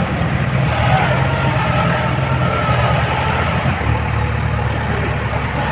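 Heavy diesel engine running steadily; its note and the hiss above it change about four seconds in.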